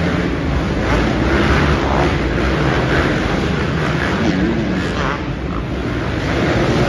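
Several 450-class motocross dirt bikes racing together on an indoor arena track, their engines revving up and down and overlapping, echoing through the arena.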